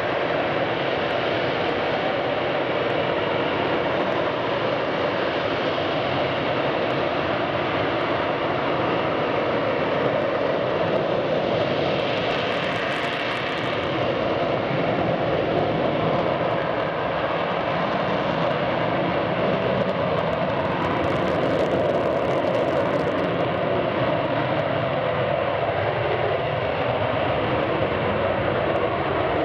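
F-35B Lightning II hovering on its Pratt & Whitney F135 engine and shaft-driven lift fan, a loud, steady jet noise that holds level throughout, with a brief extra hiss twice.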